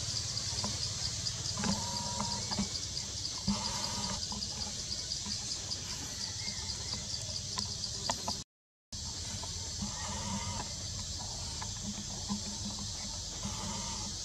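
Forest ambience: a steady, pulsing insect chorus, with a handful of short, bleat-like cries from macaques now and then. The sound drops out completely for a moment about eight seconds in.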